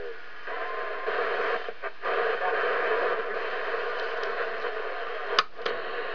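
President McKinley CB transceiver's loudspeaker hissing with receiver static between stations, the sound cut off below and above like a radio speaker, with two brief dropouts around two seconds in. A sharp click sounds about five and a half seconds in.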